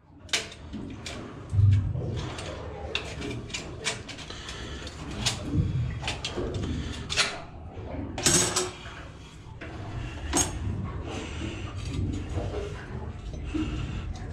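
A spanner working the bolts and pipe fittings of a marine diesel's raw water pump: irregular metallic clicks, clinks and knocks as the tool is fitted, turned and shifted, with a dull thump about a second and a half in.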